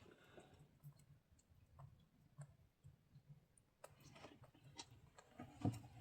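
Near silence with faint, scattered clicks and light knocks, one somewhat louder knock near the end.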